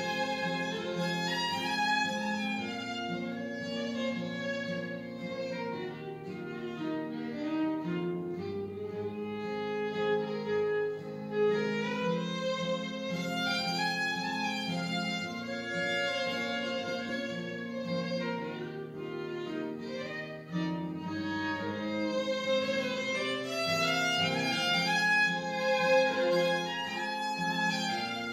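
A fiddle playing a melody with acoustic guitar accompaniment.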